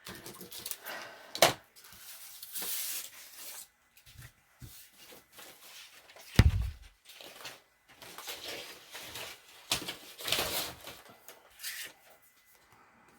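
Paper handling at a work table: sheets rustling and sliding, with scattered small clicks and one dull thump about six and a half seconds in.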